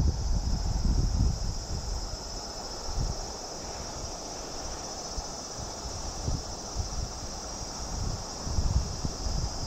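Insects chirring steadily in an even, high-pitched drone, with wind buffeting the microphone in gusts, strongest at the start and near the end.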